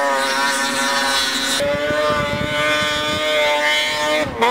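Snowmobile engine running hard at high revs on a hillclimb, holding a steady pitch, with a brief dip and recovery in revs near the end.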